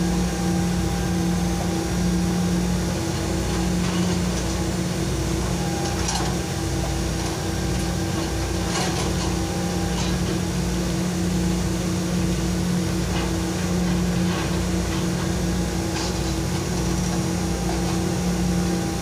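Hitachi UH083 long-reach excavator's diesel engine running steadily while it digs, with a faint hydraulic whine that dips in pitch now and then. A few short clanks come through about six, nine and sixteen seconds in.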